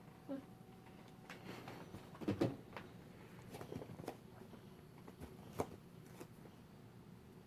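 Faint scattered knocks and handling noises in a small room, the loudest a short thump a little over two seconds in.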